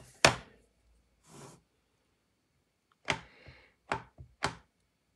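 A clear acrylic stamp block knocking against a plastic ink pad as the stamp is inked. There is one sharp plastic click about a quarter second in, a soft rustle, then four quick taps a little after three seconds.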